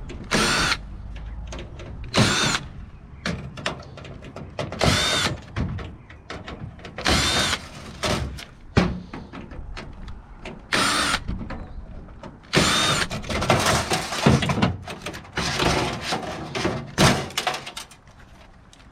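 Computer-tower teardown with hand and power tools: short bursts of a power driver or drill every second or two, mixed with clatter and knocks of metal parts and components being handled.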